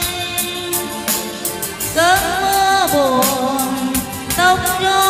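A slow Vietnamese ballad played over a backing track with a steady beat, a woman singing the melody into a microphone with gliding, held notes.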